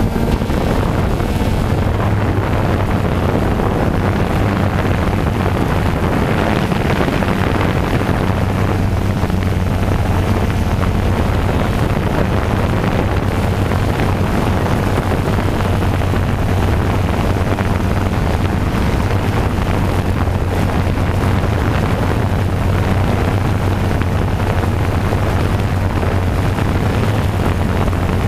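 Small quadcopter drone's motors and propellers running steadily, heard from the drone's own camera as a loud, unchanging hum with a hiss over it.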